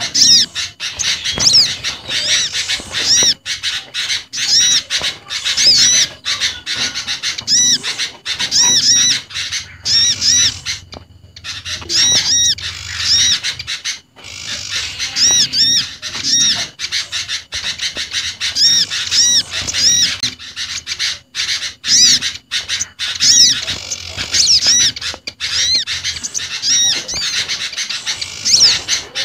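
Bird-lure recording of small garden birds calling over one another, a mix of olive-backed sunbird, common iora, bar-winged prinia and sooty-headed bulbul. Rapid, high, looping chirps repeat almost without pause, with a couple of brief breaks.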